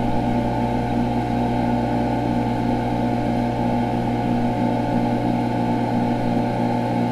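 Steady drone from 3/4 hp pool pumps, their vibration picked up by piezo microphones and played back through instrument amplifiers and bass transducers. It is a low hum with several higher tones held above it, unchanging throughout.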